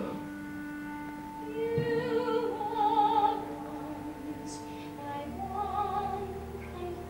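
A soprano voice sings a slow stage-musical ballad over sustained orchestral chords. There are two phrases of long notes with wide vibrato, the first and louder one starting about a second and a half in, the second near the end.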